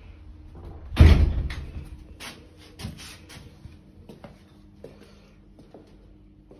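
A heavy thud about a second in that dies away over about a second, followed by a string of lighter knocks and clicks.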